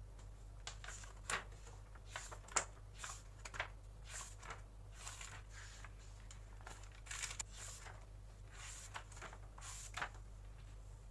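Paper pages of a bullet journal being turned one after another: a string of soft swishes and rustles, with a few sharper flicks.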